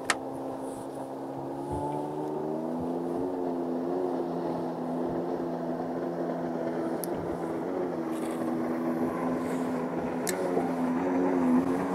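Bow-mounted electric trolling motor running with a steady whine that rises a little in pitch two to three seconds in and then holds, with a few short ticks.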